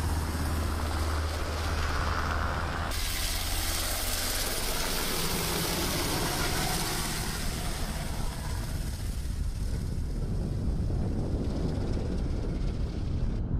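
HH-60G Pave Hawk helicopter flying overhead: steady rotor and turbine engine noise. The sound changes abruptly about three seconds in, turning hissier, and the hiss thins out near the end.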